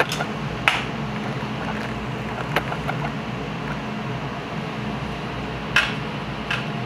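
Steady background hum of commercial kitchen equipment, with a few short, light clicks and clinks as garnish is picked from small bowls on a tray during plating; the sharpest click comes a little under a second in.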